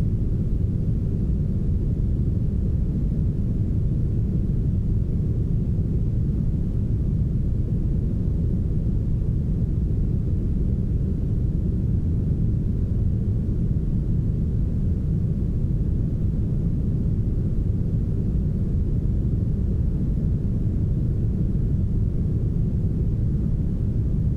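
Soft, smoothed brown noise: a steady, even deep hiss with its energy low down and almost no treble.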